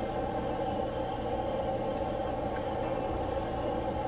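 Steady rushing noise of a high-output gas wok burner running at full flame under a wok of soup, with a low rumble underneath.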